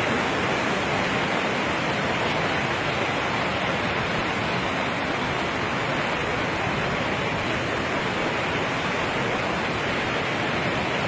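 Steady rushing of a river in flood, its fast, high water running beneath a bridge.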